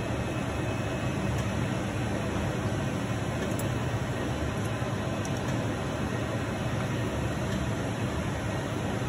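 Steady low mechanical hum of running machinery, even throughout with no change.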